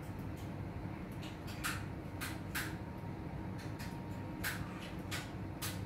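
Light plastic clicks and taps, about ten of them at irregular intervals, as tongs set baby bottle nipples and small accessories onto the plastic tray of a steam sterilizer.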